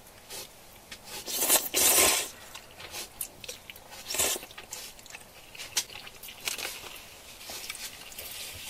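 Close-miked eating: irregular crunching bites and chewing of food, loudest in a long crunch about one and a half to two seconds in and again around four seconds.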